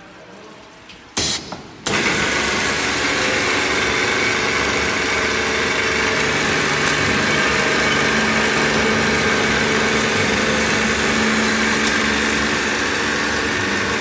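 Semi-automatic 5-gallon bottle brushing and washing machine starting up. A short loud burst comes about a second in, then from about two seconds a steady hiss of water spray runs over the hum of its motors and pump, with a couple of faint clicks.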